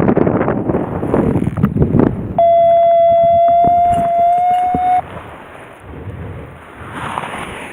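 Wind buffeting the microphone, then a steady electronic tone that holds for about two and a half seconds, its pitch creeping slightly upward, and cuts off abruptly. After it only quieter wind noise is left.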